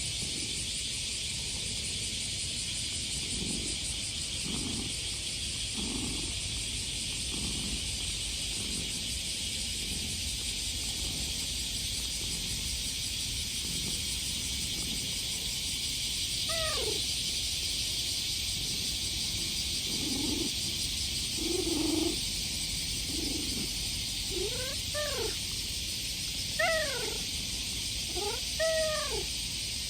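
Stray cat meowing and making soft, cute little calls while it is stroked. The calls start short and low, then become several clear rising-and-falling meows in the second half. Cicadas drone steadily throughout.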